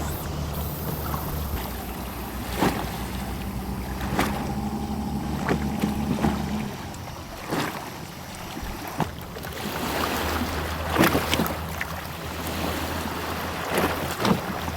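Outdoor ambience by a lake: a steady low rumble that fades for a couple of seconds midway, with scattered short knocks and clicks.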